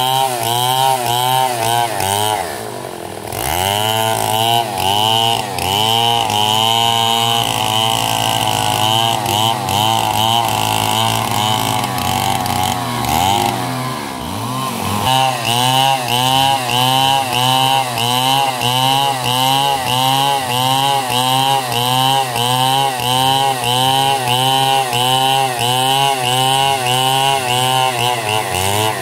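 Stihl chainsaw ripping a log lengthwise along the grain, its engine pitch swelling and sagging rhythmically under load, about twice a second. About three seconds in the engine drops briefly and revs back up, and through the middle the rhythm loosens before settling again.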